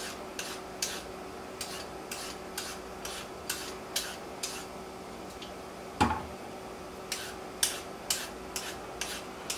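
Hand vegetable peeler scraping down raw carrots in quick strokes, about two short rasps a second, with one louder knock against the wooden cutting board about six seconds in.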